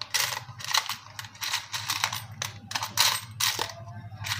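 Small plastic wiring connector housings and metal crimp terminals rattling and clinking in a plastic box as a hand rummages through them, in quick irregular clicks.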